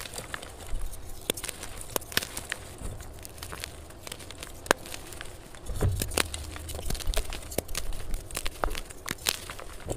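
Blocks of dyed gym chalk crushed and crumbled between fingers, a quick, irregular run of crisp cracks and crunches, sped up.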